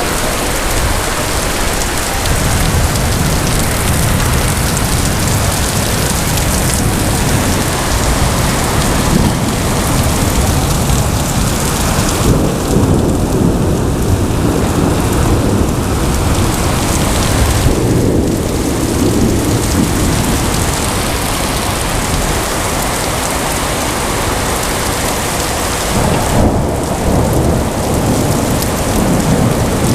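Heavy rain pouring steadily during a thunderstorm, with thunder rumbling low several times, swelling about 12, 18 and 26 seconds in.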